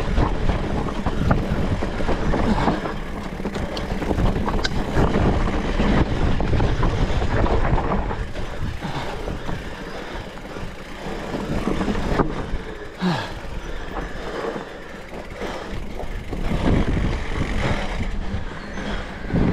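Electric mountain bike being ridden along a dirt trail: wind rushing over the microphone and tyres rolling, with scattered knocks and rattles from the bike.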